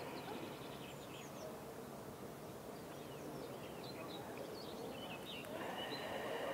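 Faint outdoor ambience: several small birds chirping and singing in short scattered calls, over a steady low background rush.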